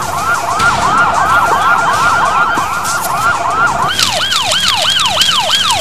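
Fire engine siren in a fast electronic yelp, about four rising-and-falling sweeps a second, switching about four seconds in to a wider, slightly slower sweep.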